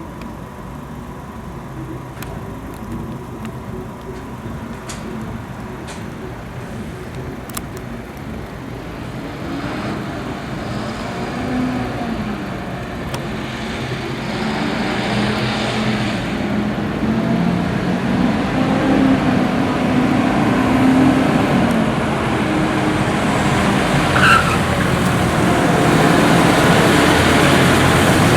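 Fire engines' engines running and revving, growing steadily louder as the vehicles draw near, with a short high squeak near the end.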